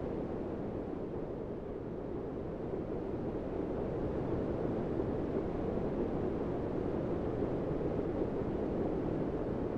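A steady, even rushing noise like wind, with no distinct events in it.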